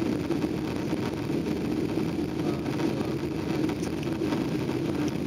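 Jet engine and airflow noise inside an airliner's passenger cabin during the climb after takeoff: a steady, unbroken drone with its weight in the low middle.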